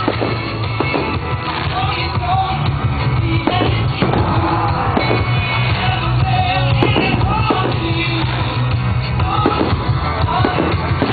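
A song with singing played loud for a fireworks display, with scattered firework bangs over it.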